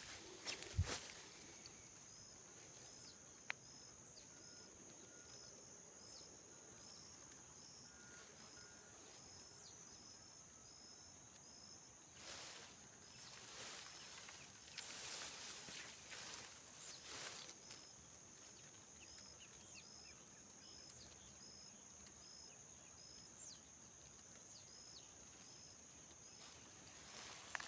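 Faint outdoor ambience of insects: a steady high drone with a short high chirp repeating about twice a second, and a few soft rustles in the middle.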